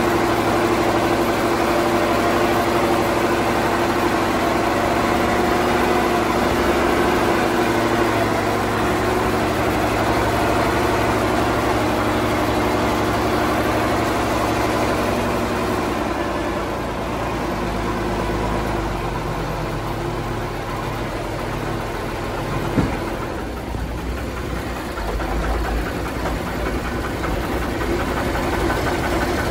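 Praga V3S truck's air-cooled Tatra six-cylinder diesel running under way, heard from inside the cab. The engine note eases and drops a little past the halfway point. There is a single thump about 23 seconds in, and the engine picks up again near the end.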